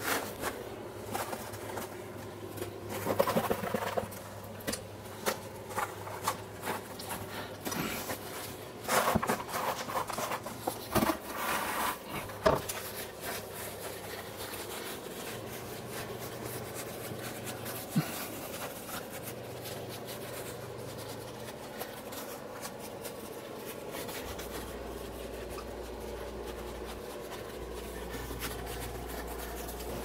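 Gloved hands pressing and working gritty castable refractory mix into a steel ring, with scraping and crunching that is busiest in the first half, then dies down to occasional soft touches over a faint low hum.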